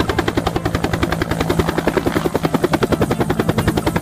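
Helicopter in flight, its rotor beating in a rapid, even rhythm over a steady engine hum.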